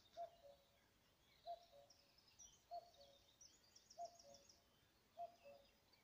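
Common cuckoo calling its two-note "cu-coo", a higher note falling to a lower one, five times at an even pace of about one call every second and a quarter, faint. A small songbird chirps and trills in the middle.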